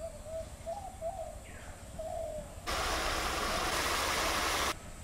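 A bird gives a string of short calls. About halfway through, loud bubbling of curry boiling hard in a pan starts suddenly and cuts off about two seconds later.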